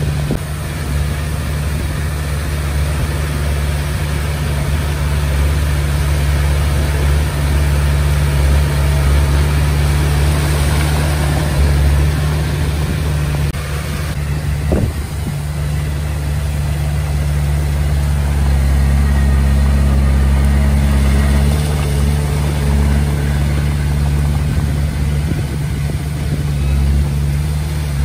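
Komatsu D20P bulldozer's diesel engine running steadily while working, with a single sharp knock about halfway through.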